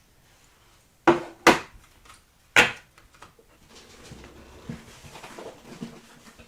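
Three sharp knocks of hard objects against a hard surface, two close together and a third a second later, followed by quieter shuffling and small clicks of things being handled.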